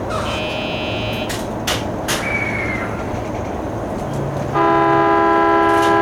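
Electric train's horn sounding one long blast a little past halfway, the loudest sound here, signalling that the stopped train is about to move off. Before it come a short high tone and a few sharp clicks over a steady rumble.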